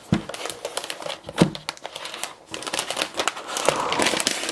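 A laptop's protective plastic wrap being peeled off and handled, crinkling and crackling throughout. There is a single knock about a second and a half in.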